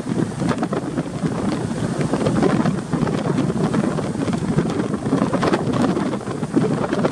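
Strong wind buffeting the microphone aboard a ship at sea in rough weather, a constant gusty rush with no letup.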